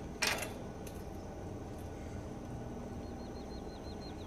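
A short, sharp noisy burst about a quarter-second in, then quiet rural ambience with a low steady hum; near the end a small bird gives a quick trill of about ten falling chirps.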